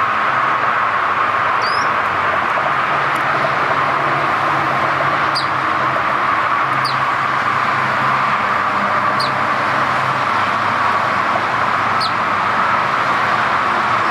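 Sparrow giving a handful of short, high chirps spread a few seconds apart, over a steady, loud background noise with no clear pitch.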